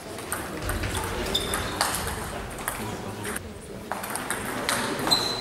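Table tennis ball clicking sharply and irregularly off bats and table during a doubles rally, with further ball clicks from neighbouring tables in the hall.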